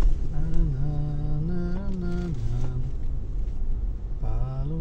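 A voice singing slow, drawn-out notes that slide from one pitch to the next, over the low rumble of a car heard from inside its cabin.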